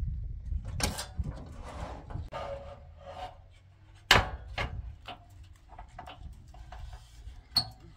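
Large wooden door scraping and knocking as it is slid down off the side of a pickup truck's bed, with a sharp knock about four seconds in and another near the end.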